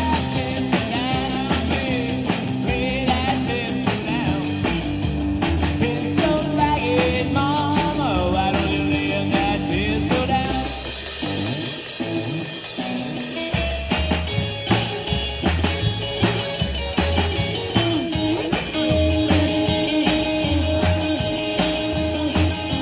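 Live band of electric guitar, upright double bass and small drum kit playing an instrumental passage, the guitar carrying a bending lead line. About halfway through, the bass and drums drop out for a couple of seconds, then come back in.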